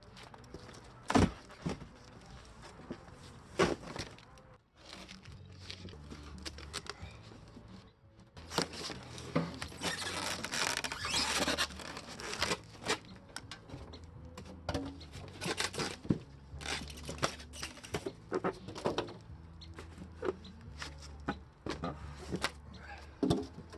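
Sharp knocks and clatter of wood being handled on a hydraulic log splitter, with a dense crackling stretch about ten seconds in, over a low steady hum.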